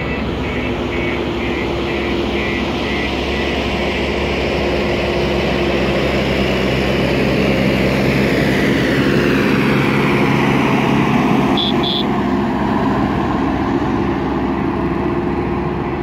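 Diesel engine of a JCB 3DX backhoe loader running steadily as the machine drives closer, growing gradually louder. A rapid electronic beeping sounds in the first few seconds, and two short high beeps come about three-quarters of the way through.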